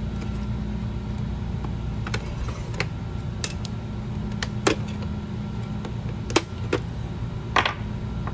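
Handling clicks and knocks as batteries are pulled out of the R/C tank's battery compartment: about seven sharp plastic-sounding clicks spread over several seconds, heard over a steady low hum.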